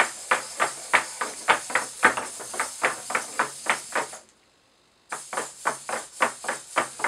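Hexapod robot walking: its hobby servos buzz and click in quick succession as the legs step and the feet tap the board floor, several times a second. The stepping stops about four seconds in for nearly a second, then starts again.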